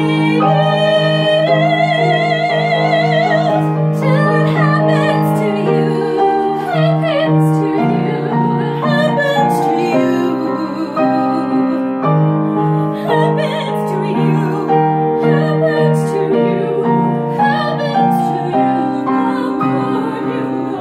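Women's vocal ensemble singing a slow piece in harmony, a high voice with strong vibrato carrying the line, over sustained piano chords.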